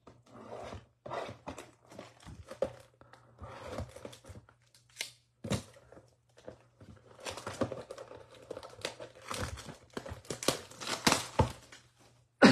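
Plastic wrapper being torn off a Bowman baseball card box and crinkled in the hands: irregular rustling and crackling, busiest and loudest near the end.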